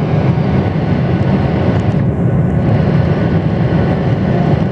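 Steady low cabin noise of an airliner's jet engines and rushing air, heard from inside the cabin during the climb after takeoff.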